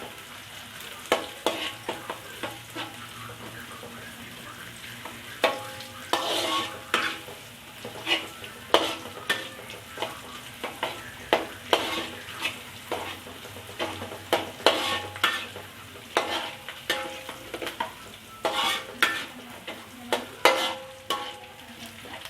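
Onions frying and sizzling in hot oil in a pan while a spatula stirs them, scraping and knocking against the pan at irregular intervals, some knocks ringing briefly. The onions are being fried until lightly golden.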